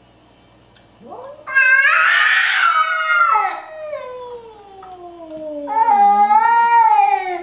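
Cat caterwauling, the drawn-out threat yowl of a cat in a standoff with another cat. A long wavering yowl begins about a second in and slides slowly down in pitch. A second loud yowl follows near the end.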